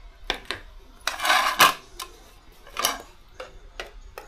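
Serving ladle and metal cooking pot with plates while food is dished out: several sharp clinks and knocks, and one longer scrape a little over a second in.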